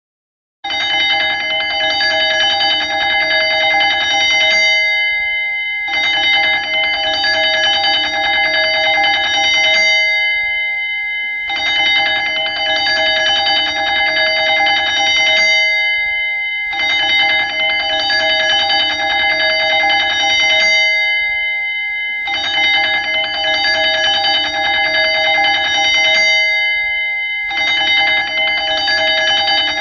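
Electric alarm bell ringing in bursts of about four seconds, with short pauses of about a second between them. Its pitch stays steady rather than rising and falling like a siren.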